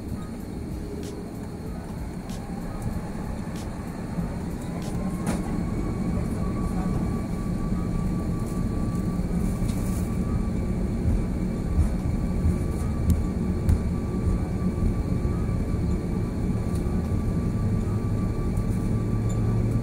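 Inside the cabin of an Airbus A340-600 on its takeoff roll: the four Rolls-Royce Trent 500 engines spool up with a rising whine about four to five seconds in, then hold a steady high whine over a low rumble that grows louder as the aircraft accelerates. A few sharp clicks and bumps come through the rumble.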